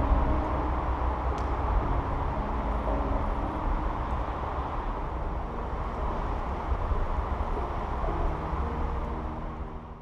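Steady low rumble of outdoor background noise, fading out near the end.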